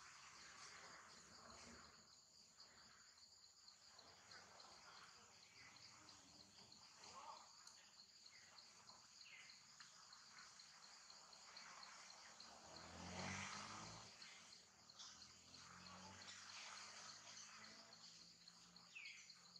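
Faint, steady chirring of insects in the vegetation: a high, evenly pulsing trill that runs on without a break. A brief, louder, indistinct sound rises and falls about two-thirds of the way through.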